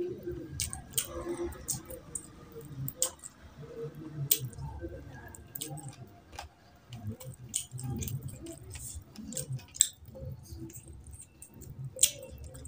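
Eating sounds: wet chewing and lip smacks, many sharp irregular clicks, and the squish of a bare hand mixing rice with curry gravy.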